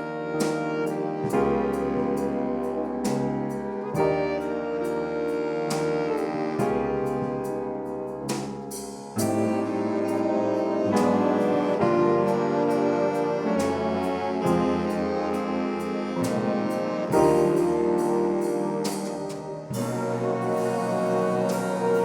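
A swing band playing: saxophones and brass with piano, in full, sustained chords with regular accents.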